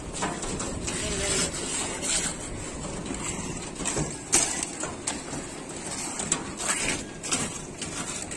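A steel hand trowel scraping and patting wet concrete as it is spread over a roof slab, with short irregular scrapes and knocks and one sharper knock about halfway through.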